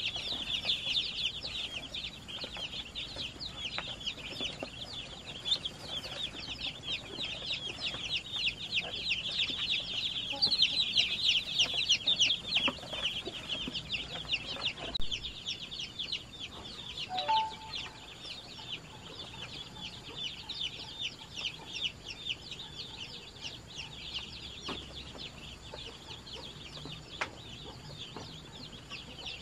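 A brood of baby chicks peeping, many high, short cheeps overlapping in a continuous chorus, loudest about ten to thirteen seconds in.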